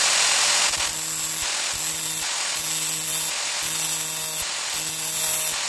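Angle grinder running and grinding down weld built up on the worn dog corners of a motorcycle gearbox gear, re-profiling them so the gear stops jumping out. A strong grinding hiss for the first second, then the motor's steady tone with a pulsing pattern about once a second as it works the metal.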